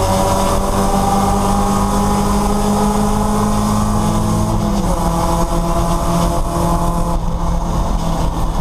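Porsche 944 race car's four-cylinder engine heard from inside the cockpit, pulling hard with its pitch slowly rising. About halfway through the pitch steps down sharply at an upshift, then holds and climbs again.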